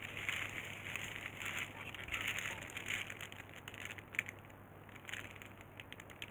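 Irregular crinkling and rustling of something being handled, in uneven bursts with small clicks, thinning out in the second half, over a faint steady hum.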